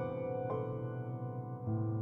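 Slow instrumental piano music with notes left ringing. A new note is struck about half a second in, and a new chord with a low bass comes in near the end.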